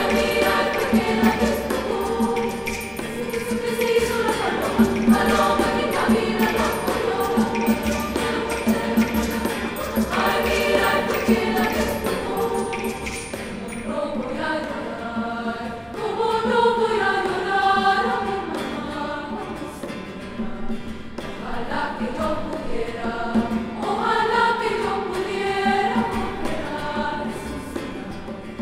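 Treble choir of teenage girls singing together in parts, with a repeated low note pulsing under the voices in the first half.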